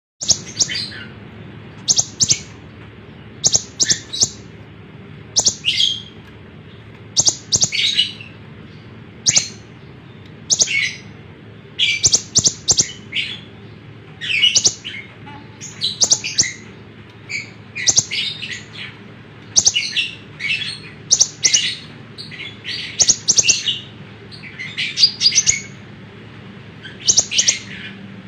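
Kolibri ninja (konin), a small sunbird, singing vigorously: short bursts of rapid, high, sharp chirps repeated every second or two, over a steady low hum.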